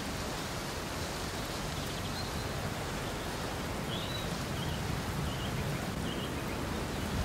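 Steady hiss of rain from an artificial rain system, with a low rumble underneath.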